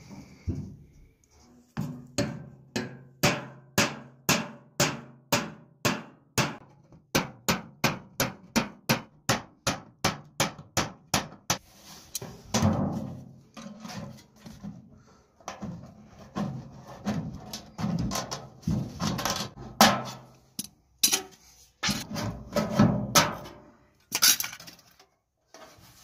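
Sheet metal of a tin oil can being worked to cut a round hole in its top: first about ten seconds of quick, sharp metal knocks, two or three a second, then uneven crunching strokes of tin snips biting through the thin tinplate.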